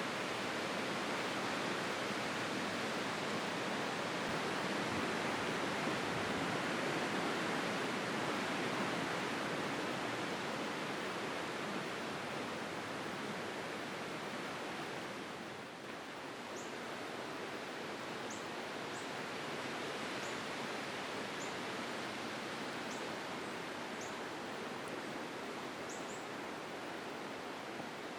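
Strong wind rushing steadily through trees and dry field vegetation, easing briefly about halfway through. In the second half, faint, short, high-pitched chirps repeat about once a second over the wind.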